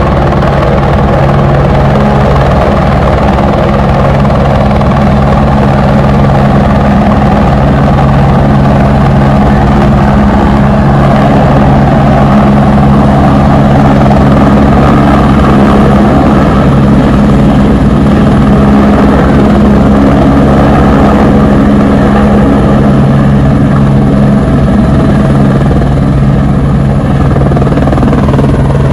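Air ambulance helicopter running loudly as it comes down low and sets down on the pavement, its rotor giving steady low tones under a continuous turbine rush.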